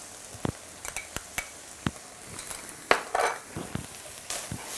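Spoon clicks and knocks against a pan and a small container as tomato paste is added to minced lamb frying in a stainless steel pan and stirred in, with a louder clatter about three seconds in. A low sizzle of frying runs underneath.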